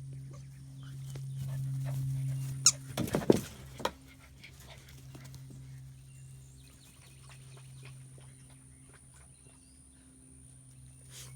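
German Shepherd puppies moving about and playing, with a burst of close scuffling thumps and rattles about three seconds in, over a steady low hum.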